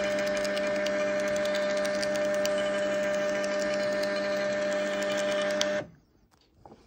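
TSC TC300 thermal transfer label printer running as it prints and feeds out satin care labels: a steady mechanical whine with fine rapid ticking. It stops abruptly near the end.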